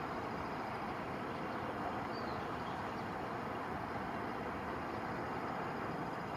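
Steady, even vehicle rumble and hiss with no single event standing out.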